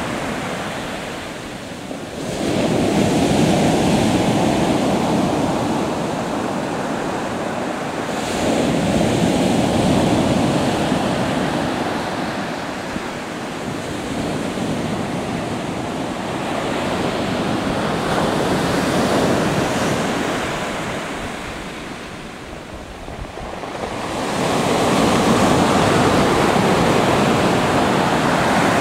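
Pacific Ocean surf breaking and washing up the beach in four surges, each building and fading over several seconds.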